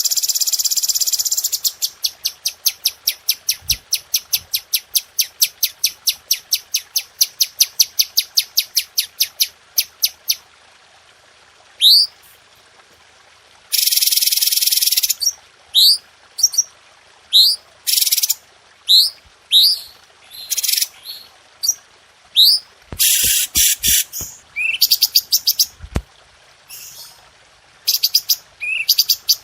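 Cucak cungko songbird singing in sharp, tightly spaced high chirps, about four a second, for the first ten seconds. After that come rising whistled notes mixed with short buzzy trills.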